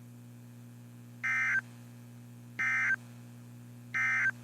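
Three short, identical bursts of warbling EAS data tone, about a second apart, over a steady low hum: the End of Message code that closes a NOAA Weather Radio severe thunderstorm warning.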